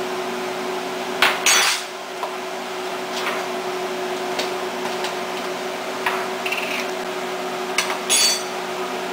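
Metal spoon clinking and knocking against spice jars and a stainless steel cooking pot as spices are spooned in, with a few sharp knocks about a second in and again near the end, over a steady hum.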